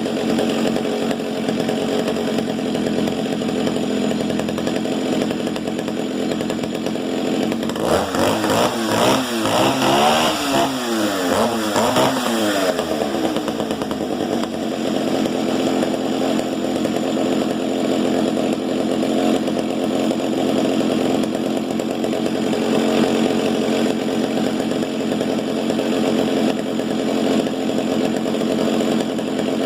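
Stihl 08S 60cc two-stroke chainsaw engine running steadily after a cold start in freezing weather. About eight seconds in, its pitch swings up and down several times as the throttle is blipped for about five seconds, then it settles back to an even idle.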